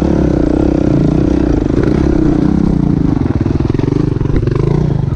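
Dirt bike engine running at low revs while climbing a rough trail, its note falling in the middle and rising again near the end as the throttle changes, with the bike clattering over the ruts.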